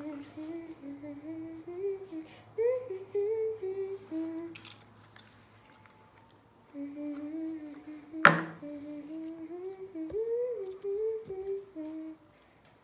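A person humming a tune in short stepping notes, stopping for about two seconds in the middle and then starting again. A single sharp tap about eight seconds in.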